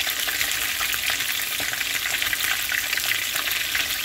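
Two whole snapper shallow-frying in hot oil in a pan: a steady, dense sizzle full of small crackling pops.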